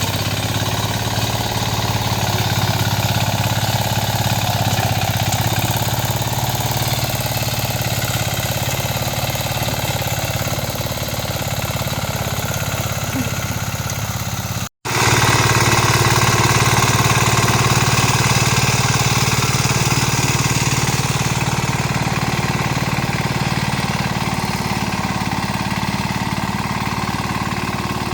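Mini tractor engine running steadily while it works a muddy rice field with a harrow. About halfway through the sound drops out completely for a split second, then comes back a little louder.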